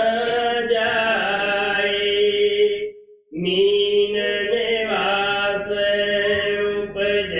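Devotional chanting of a hymn in long held notes, with a brief pause about three seconds in.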